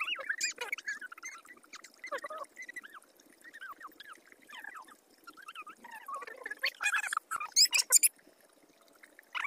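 Animal calls: many short rising and falling chirps, with a louder cluster of calls about seven to eight seconds in.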